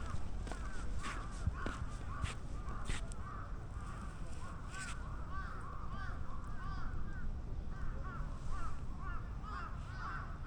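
Birds calling over and over, a steady stream of short rising-and-falling calls, two or three a second, over a low background rumble.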